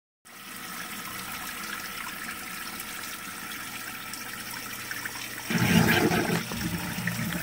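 Water splashing and trickling steadily into a sump pump basin from a garden hose. It gets much louder and fuller about five and a half seconds in, then eases off near the end.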